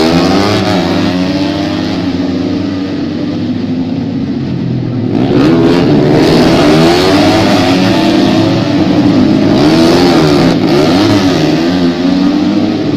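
Several tuned racing motorcycles running hard together, their engines rising and falling in pitch as they accelerate, shift and pass. It gets louder about five seconds in.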